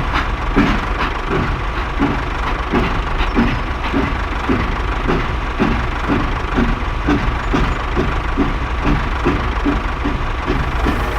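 Heavy vehicle engine running with a steady low rumble and a regular chugging beat of about two to three pulses a second.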